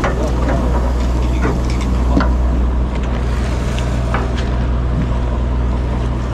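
Party boat's engine running with a steady low drone.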